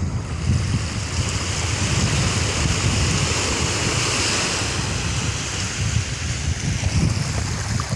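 Small sea waves washing up a sandy beach: a foamy surf hiss that swells a couple of seconds in and eases off near the end, with wind rumbling on the microphone underneath.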